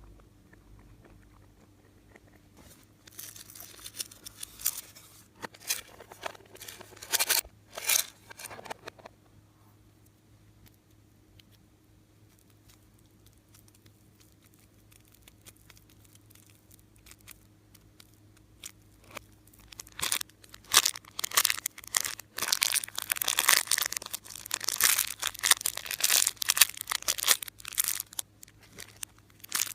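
Slime being handled and worked by hand, with dense crackling and crinkling bursts for several seconds near the start, a quiet stretch, then a longer run of crackling from about two-thirds of the way in.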